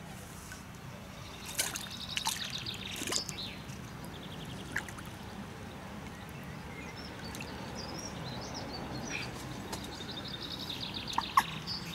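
Birds singing outdoors: two short, rapid high trills, one early and one near the end, with scattered chirps between, over a steady low background hiss. A few sharp clicks cut in, the loudest near the end.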